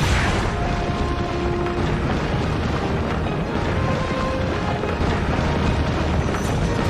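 Anime-style battle sound effects: a sudden blast at the start, followed by a continuous heavy rumble like a sustained explosion, with music underneath.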